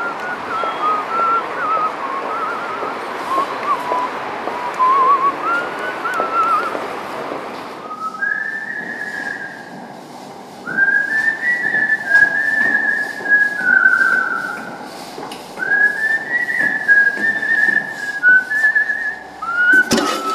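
A person whistling a wandering tune, the pitch gliding up and down in short phrases. A steady rushing background noise cuts away about eight seconds in, leaving the whistling clearer and louder. One sharp knock near the end.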